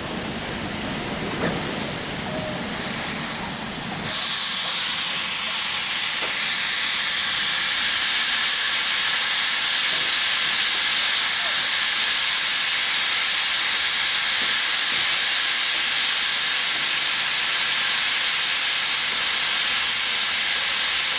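Steam escaping with a steady, loud hiss from a standing steam locomotive. A lower rushing noise fills the first four seconds before the hiss takes over.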